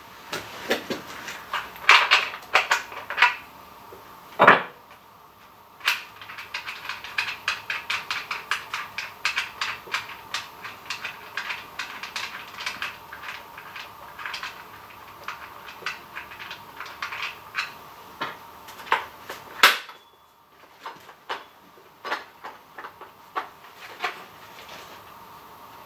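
Small plastic and metal clicks and knocks from handling a Baumr-AG SX25 top-handle chainsaw while its bar nuts and side cover are worked loose with a scrench. A quick run of small clicks from about six to twenty seconds in, with a few louder knocks.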